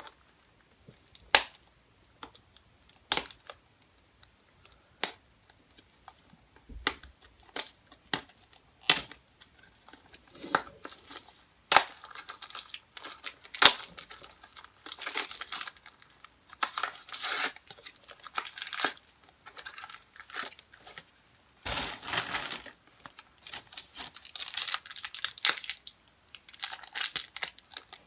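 Shopkins blind basket packaging being opened by hand: sharp plastic clicks and snaps for the first dozen seconds, then near-continuous crinkling and tearing of the wrapper inside.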